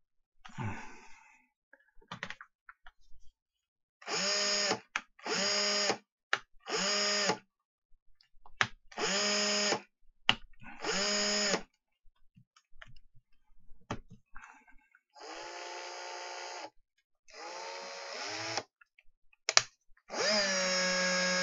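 Bosch cordless drill's motor run in short bursts of about a second, five times, then twice more at a lower level, slowing as it stops, and a longer run near the end, with a few clicks between runs. The drill is being test-run on its newly fitted lithium battery pack.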